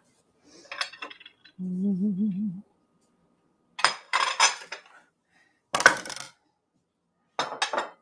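Glass bowls and dishes clinking and knocking on a kitchen counter as they are moved around, in several short clatters. About two seconds in, a brief hum with a wavering pitch.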